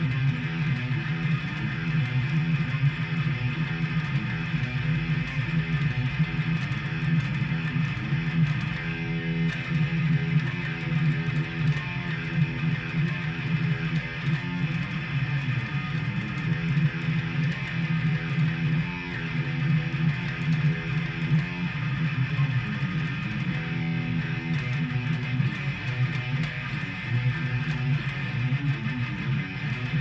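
Electric guitar played without a break, picking continuous riffs and chords.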